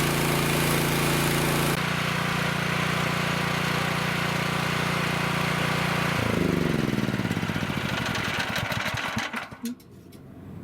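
Champion Pro gas pressure washer engine running steadily with a hiss of spray above it; its note changes about two seconds in. About six seconds in it is shut off and winds down over about three seconds, falling in pitch until it stops.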